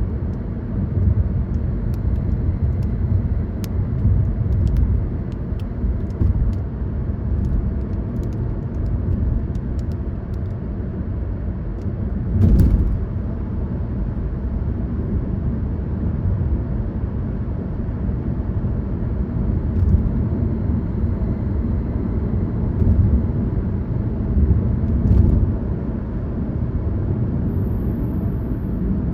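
Car driving along a road, a steady low rumble of tyres and engine, with a thump about twelve seconds in and a few lighter knocks.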